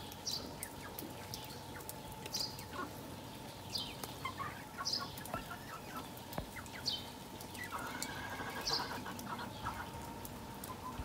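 Chickens calling: a short, high, falling peep every second or two, and a longer, lower call about eight seconds in.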